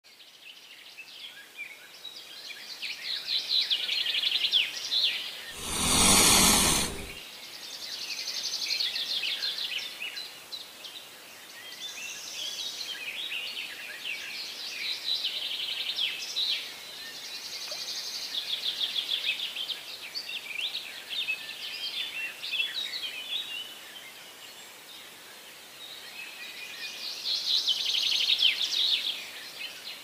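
Songbirds singing: repeated high, rapid trilled phrases a second or a few long, coming one after another with short gaps. About six seconds in, a brief loud rush of noise covers everything for over a second.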